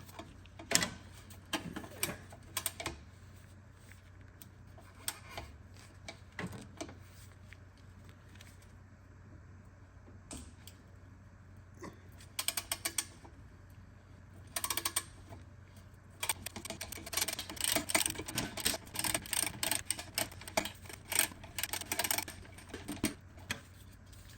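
Socket ratchet clicking as a 12 mm exhaust bolt is worked on: scattered clicks and knocks at first, a quieter stretch in the middle, then short runs and finally dense rapid clicking in the last third. A faint steady low hum sits underneath.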